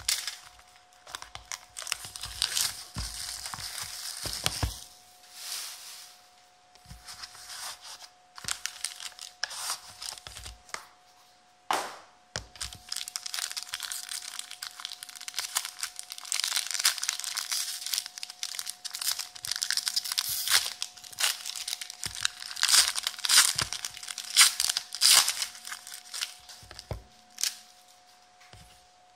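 A trading-card box's seal and its gold foil pack wrapper being torn open and crinkled by hand, in irregular bursts of crackling and tearing, with one sharp crack about twelve seconds in.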